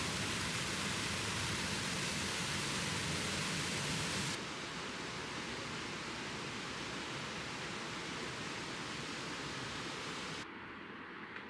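Peričnik waterfall, a steady rush of falling water. The sound drops abruptly twice, about four seconds in and near the end, each time becoming quieter and less hissy.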